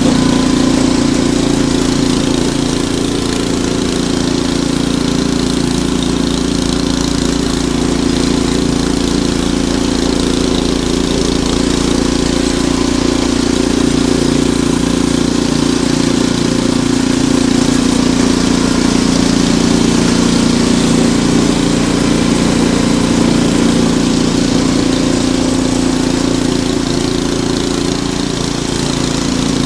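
Ariens Deluxe 28 snowblower engine running at a steady speed.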